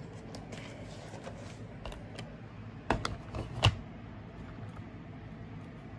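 A few light clicks, then three sharp plastic clicks and knocks about three seconds in, the last the loudest, from the camera being handled and repositioned.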